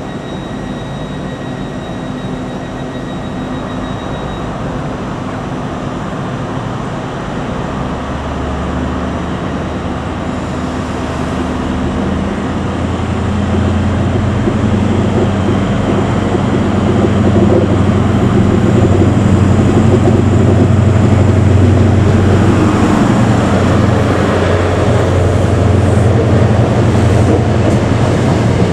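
Class 43 HST power car's MTU diesel engine running as the train draws slowly into the platform. The engine's steady low note grows louder about halfway through as the power car comes close and passes.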